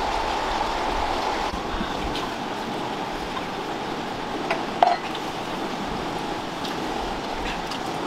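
Steady rush of a flowing river, with one brief, louder sound about five seconds in.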